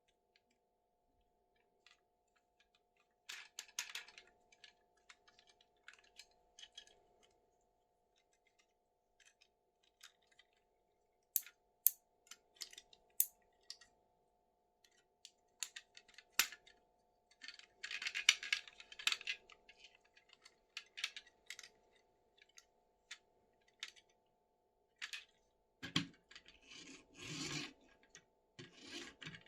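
Handling of toy packaging and plastic toy vehicles: scattered light plastic clicks and taps, with short spells of crinkling and rustling packaging about three seconds in, around eighteen seconds and again near the end.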